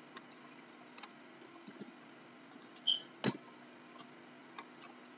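Scattered computer mouse and keyboard clicks, a few soft ones and one sharper click about three seconds in. A brief high blip comes just before the sharp click.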